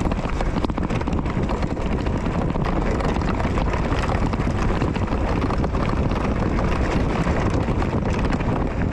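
Steady wind buffeting on the microphone of a camera carried on a moving mountain bike, with rapid, irregular rattling clicks from the rough trail.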